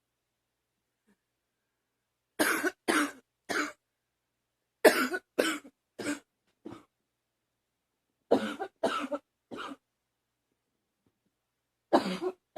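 A girl coughing in four short fits a few seconds apart, each fit three or four coughs in quick succession; the last fit begins near the end.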